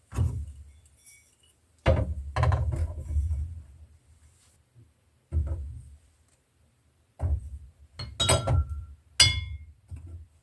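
Glass containers being set down and handled, giving a series of separate thunks and clinks, one clink near the end ringing briefly.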